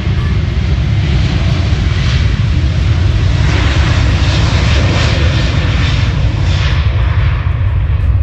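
Jet airliner taking off under full engine power: a loud, continuous rumble with a rushing roar that swells through the middle and fades toward the end as the aircraft moves away.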